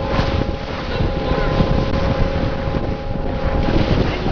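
Tow boat's motor running steadily under way as it tows a parasail, a constant drone, with heavy wind rumbling on the microphone.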